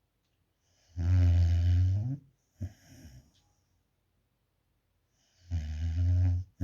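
American Staffordshire terrier puppy snoring in its sleep: two long, low snores about four seconds apart, with a short, softer breath between them.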